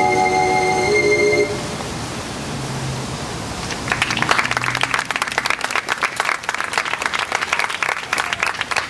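A piece of music ends on a held chord about a second and a half in. About four seconds in, the audience starts applauding and keeps clapping.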